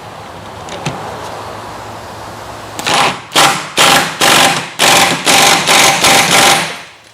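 Impact wrench run in a string of about eight short bursts, starting about three seconds in, tightening the 17 mm nut on a rear shock absorber.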